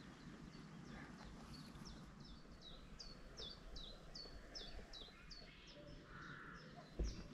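A small bird singing faintly: a quick series of repeated high notes, each sweeping downward, about three or four a second, over a low steady background hiss. A single short knock sounds near the end.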